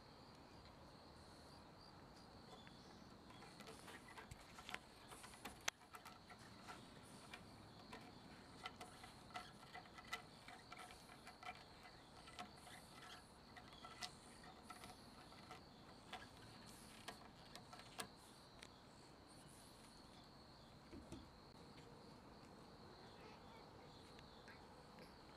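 Near silence: a faint, steady, high-pitched drone with scattered light clicks and taps, thickest in the middle stretch.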